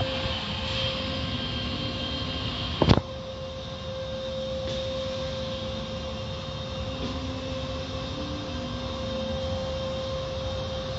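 Automatic car wash heard from inside the car: a steady rush of water spray and wash machinery with a constant hum, and one sharp thump about three seconds in.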